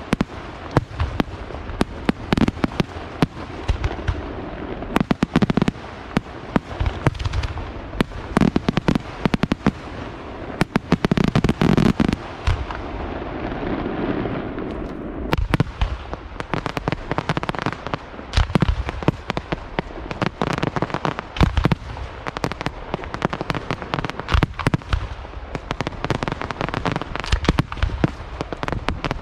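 Aerial fireworks display: shells bursting in quick, dense succession, many sharp bangs a second over a continuous rumble and crackle. About halfway through, the sharp reports ease briefly into a rolling rumble, then the rapid bangs resume.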